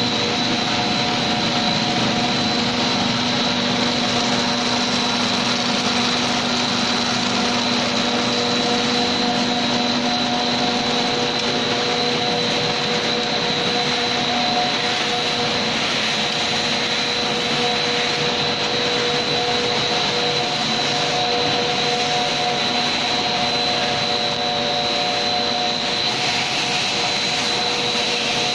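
Fish-feed extrusion production line running: a steady, loud drone of electric motors, fans and blowers, with several constant tones, one of them high-pitched.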